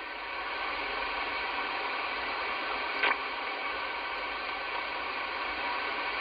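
Midland Alan 9001 CB radio receiving on the 11-metre band in SSB with no station on frequency: a steady hiss of band noise from its speaker, with one short crackle about three seconds in.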